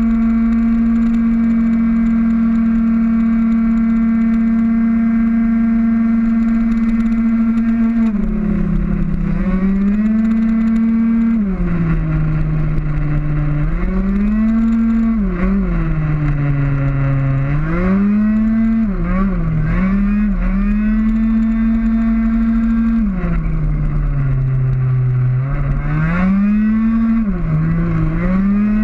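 Two-stroke racing scooter engine heard onboard, held flat out at a steady high pitch for about eight seconds, then dropping and climbing again several times as the rider backs off and accelerates through a run of corners.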